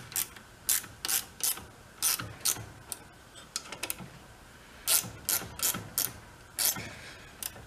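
Small hand ratchet clicking in short, irregular strokes as the end-cap bolts of a winch's electric motor are tightened down.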